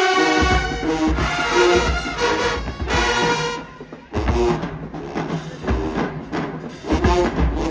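Marching band playing: brass over bass drum hits. It breaks off for about half a second midway, then comes back in.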